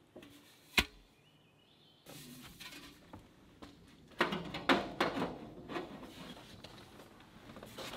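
Black stovepipe elbow being worked onto a stainless steel chimney pipe: metal scraping and clanking, with a single sharp knock about a second in and busier scraping and clicking from about four seconds in.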